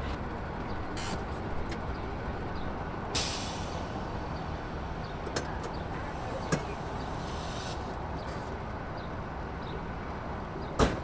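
Steady traffic noise, with a short hiss about three seconds in, a few light clicks, and a sharp knock near the end.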